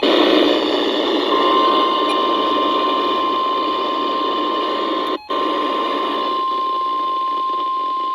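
Radio static hiss with the NOAA Weather Radio alert tone, a single steady tone near 1 kHz, coming in about a second in and holding under the hiss. The signal cuts out for an instant about five seconds in.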